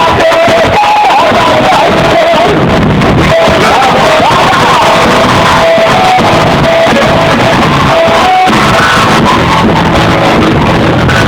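Music with a singing voice, loud and steady throughout.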